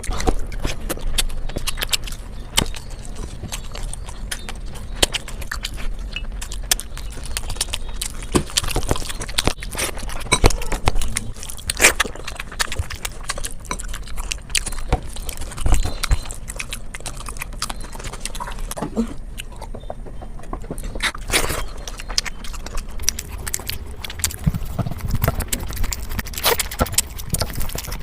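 Close-miked eating: chewing food with a dense run of sharp clicks and crunches.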